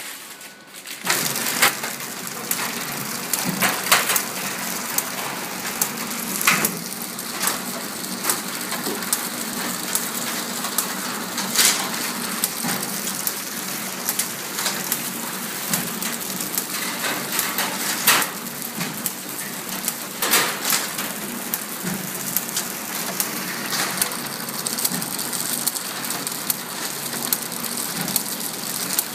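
Servo-driven packing machine for ball-bearing slides running: a steady mechanical clatter with frequent sharp clicks and knocks, starting about a second in.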